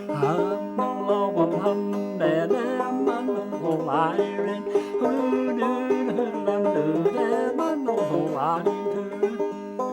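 Banjo playing an old-time tune, a steady run of picked notes over ringing strings, with a few sliding notes.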